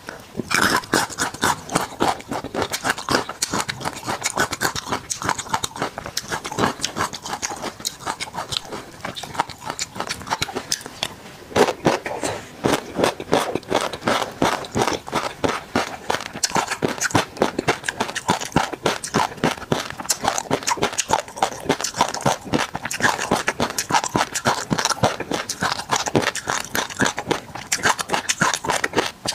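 Close-miked eating of tobiko (flying fish roe): a dense crackle of the tiny eggs popping as they are chewed, with a metal spoon scooping and scraping through the roe in a glass bowl.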